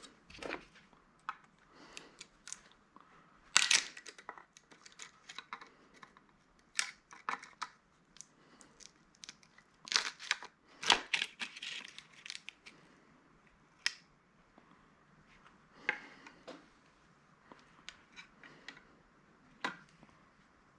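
A handheld retail inventory scanner being pulled apart by hand: irregular clicks, snaps and crackles as plastic and metal parts come loose. The loudest snaps come about four seconds in and again around ten to eleven seconds.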